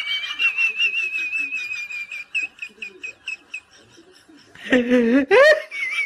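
A high, wavering whistle that breaks into short chirps. About five seconds in, a loud voice-like yell rises sharply in pitch, and then the high whistle comes back.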